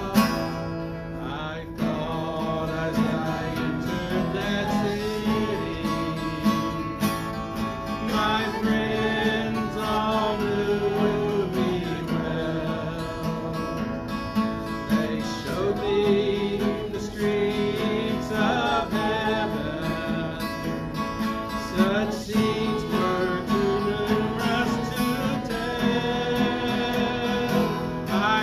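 Steel-string acoustic guitar strummed as accompaniment to a gospel hymn, with a man singing over it.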